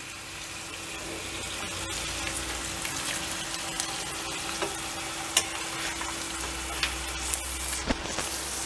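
Ground meat, eggs and cheese sizzling steadily in a stainless steel frying pan over a low gas flame, with a few sharp clicks of a metal spoon against the pan.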